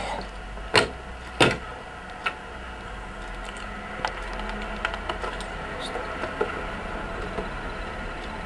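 Steady electrical hum with sharp clicks: two loud ones just under a second and about a second and a half in, then fainter scattered ticks.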